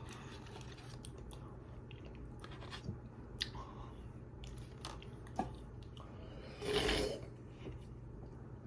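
Quiet eating sounds of a man eating mashed potatoes: scattered small wet mouth smacks and clicks, with one louder, breathy rush of air about seven seconds in.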